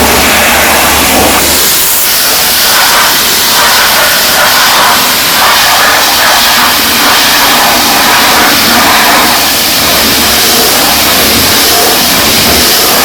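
AR 15.20 HN high-pressure washer running, its water jet spraying with a loud, steady hiss. A low hum drops away about a second and a half in, and the spray noise then wavers unevenly.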